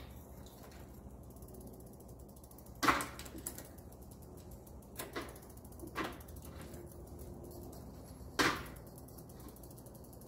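1991 Specialized Stumpjumper's rear wheel spinning in a repair stand, its hub ratchet ticking rapidly as the chain runs over the rear derailleur. Four louder clacks from the drivetrain break in, the strongest about three seconds in and near the end.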